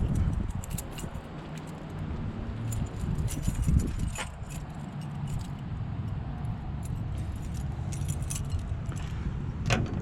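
A bunch of keys jingling in quick light clicks, most of it in the middle of the stretch, over a vehicle engine running steadily underneath.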